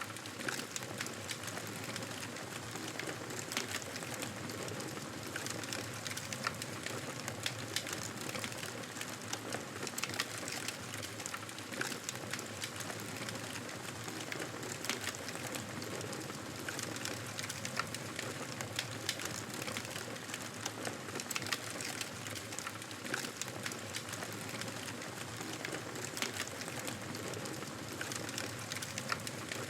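Campfire burning, a steady crackle with frequent sharp pops and snaps at irregular intervals.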